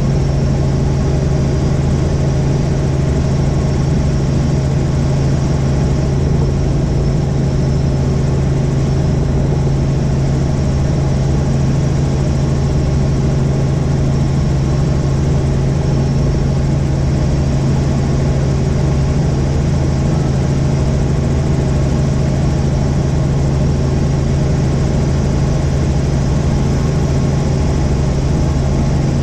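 Helicopter engine and rotors running steadily, a loud even drone with a strong low hum that does not change.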